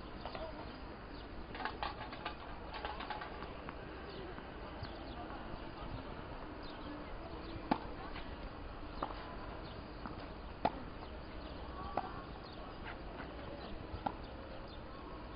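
Tennis racquets hitting the ball back and forth in a doubles rally on a hard court: single sharp pops every one to two seconds in the second half, over steady outdoor background noise.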